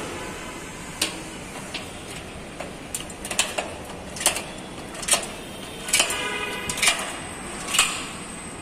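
Hand pop-rivet gun being squeezed stroke after stroke to pull a blind rivet into a steel frame, giving a dozen or so short, sharp metallic clicks at irregular intervals.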